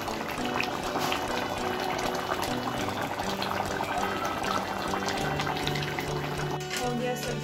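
Thick curry bubbling and spluttering as it simmers in a wok, under soft background music, with a few clicks near the end.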